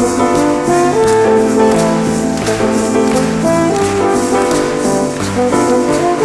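Instrumental music with several sustained notes sounding together, changing every second or so.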